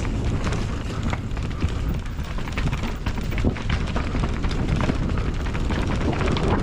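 Mountain bike riding down a rough dirt trail: tyres rumbling over the ground and frequent sharp rattles and knocks from the bike over rocks and roots.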